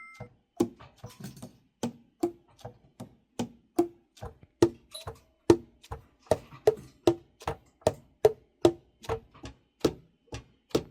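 Tenor saxophone keys being worked without blowing: a quick run of sharp key clicks and pad pops, about two to three a second, each with a short pitched ring that changes from note to note.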